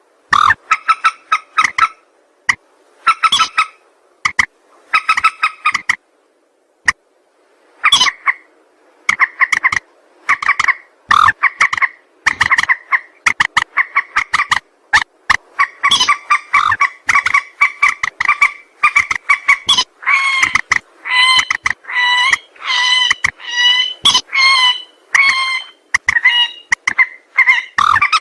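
Repeated loud calls of the rail known in Indonesia as mandar sawah: short ringing notes repeated in bursts, at first in separate groups, then strung together almost without pause from about a third of the way in.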